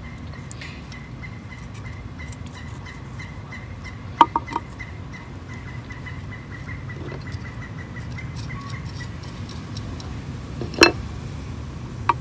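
Small decorative rocks clicking against each other as they are moved in a planter: a quick cluster of clicks about four seconds in and one sharp click near the end, over a steady low hum with a faint high whine.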